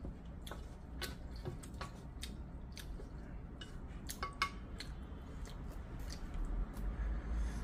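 Chopsticks tapping and scraping against a thin yellow aluminium ramen pot while stirring noodles: scattered light clicks, with one sharper ringing tap a little past the middle.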